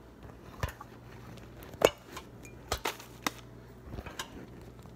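Several sharp knocks and clinks of kitchenware being handled on a kitchen counter, the loudest a little under two seconds in.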